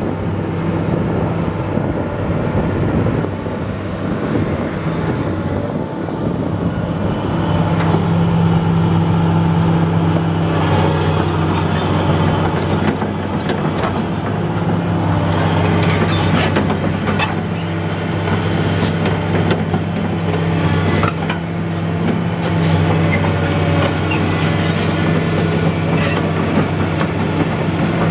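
Komatsu PC400LC-6 excavator's six-cylinder diesel engine running steadily at an even speed, with scattered faint clicks from about ten seconds in.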